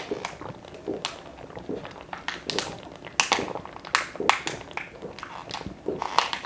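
People gulping down water fast: repeated swallows with scattered sharp clicks and crackles.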